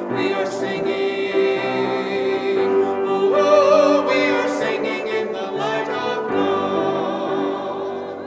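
A man and a woman singing in parts with grand piano accompaniment, their held notes wavering with vibrato; the music ends on a held chord that begins to die away near the end.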